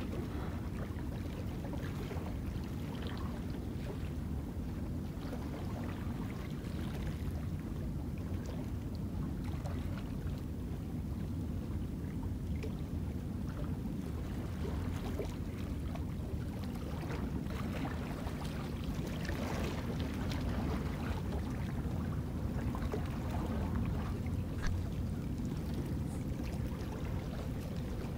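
Steady low rumble of wind on the microphone and calm sea lapping on the rocks, with faint scattered ticks and small splashes; a faint steady hum joins in the last third.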